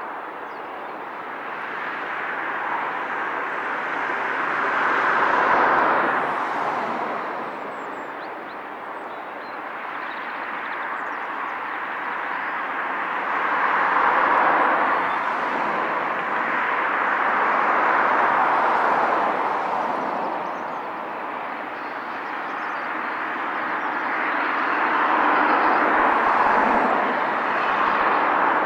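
Road traffic passing one vehicle after another, a rushing tyre and engine noise that swells and fades four times.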